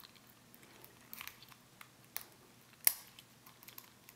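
Steel lock pick scraping and clicking in the keyway of a small Fraim pin-tumbler padlock as it is raked: a few sharp clicks, a cluster about a second in and the loudest near three seconds in.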